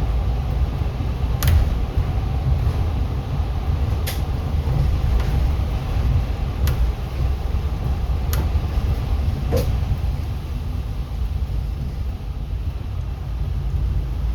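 Inside a moving city bus: a steady low rumble of engine and road noise, with five short sharp clicks or rattles spread unevenly through it.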